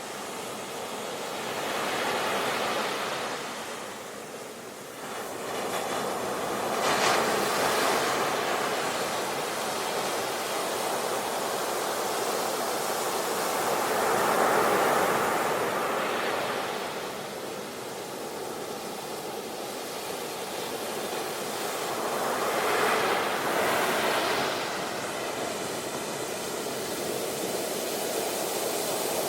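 Sea waves breaking and washing up a beach, the surf's hiss swelling and falling away every few seconds.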